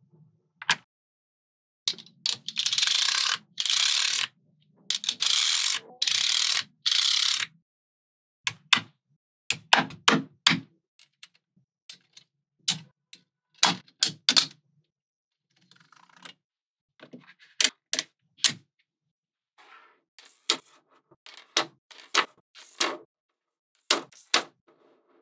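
Small magnetic balls clicking and snapping together as blocks of them are handled and placed. From about two seconds to seven seconds there are two stretches of dense rattling scrape, then sharp separate clicks that grow softer near the end as single balls are laid out.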